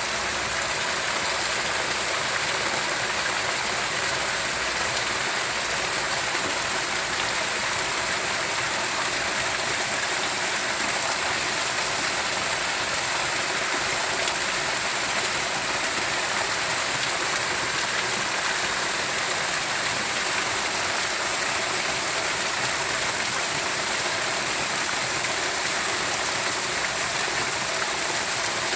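Steady rushing of running water, an even hiss with no change in level.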